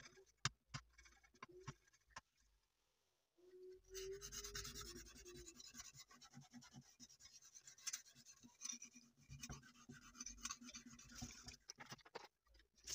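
Wooden knife handle being rubbed down by hand: a quiet, dense dry scratching that starts after a short silence a few seconds in.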